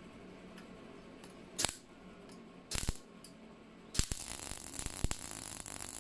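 MIG welder spot-welding thin car-body sheet steel: two short crackling zaps about one and a half and three seconds in, then a longer crackling burst of about two seconds starting near four seconds in.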